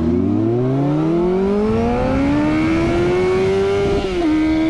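Kawasaki Z750R's inline four-cylinder engine with an aftermarket Shark exhaust accelerating hard, its revs climbing steadily for about three seconds, then dipping slightly and holding steady near the end.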